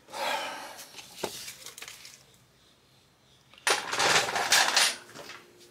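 Clattering and handling noises of metal tools and parts during hand work on a motorcycle: a rustling clatter in the first second, a sharp click just after, then a louder rattling clatter lasting about a second past the middle.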